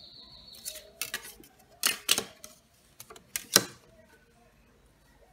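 Plastic set squares being picked up and laid on the drawing paper: a handful of sharp clicks and taps, the loudest about three and a half seconds in.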